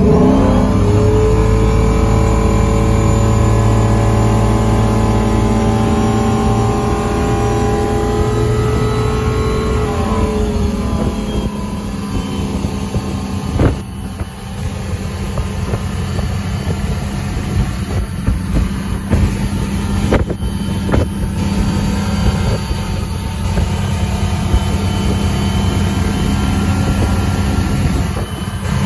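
Ski boat engine opening up hard to pull a water skier out of the water, then running steadily at towing speed. A few short knocks come in the second half.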